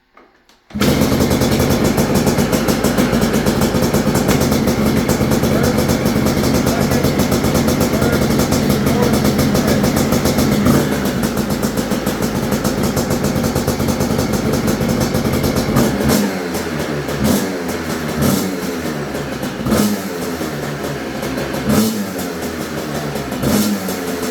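Rebuilt 1989 Suzuki RM250 two-stroke single-cylinder engine starting and running, left running so the water pump circulates coolant to bleed the cooling system. It runs steadily at first, then over the last third it is blipped on the throttle in repeated short revs.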